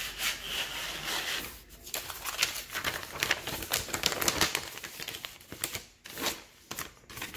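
Paper sheets and packaging crinkling and rustling as they are handled by hand, with many sharp crackles. The sound quietens briefly near the end.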